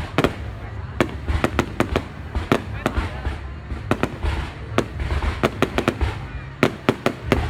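Fireworks going off: an irregular run of sharp bangs and crackles, several a second, coming thickest near the end, with a low rumble between the reports.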